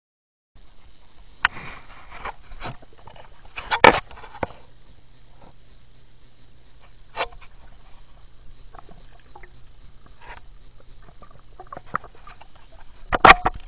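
Underwater recording: a steady faint hiss with scattered clicks and knocks of equipment being handled against the pool surface, one louder knock about four seconds in and a cluster of louder knocks and sloshing near the end.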